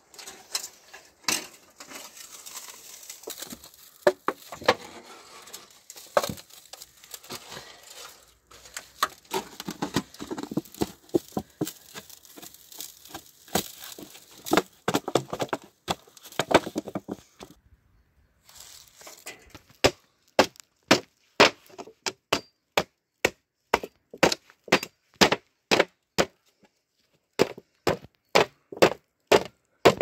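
A rusty split metal pipe being prised open and pressed flat by hand, with irregular creaks, scrapes and knocks of the metal. From about twenty seconds in comes a run of sharp blows, about two a second with short pauses, as the back of an axe head hammers the sheet flat on the ground.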